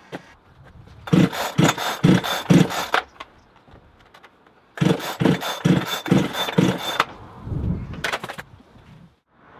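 A Parker petrol chainsaw's recoil starter is yanked in two quick bouts of about four or five pulls each, the engine turning over without ever catching. This fits the saw being broken. Just past 8 seconds the saw is kicked and it knocks and scrapes across the concrete.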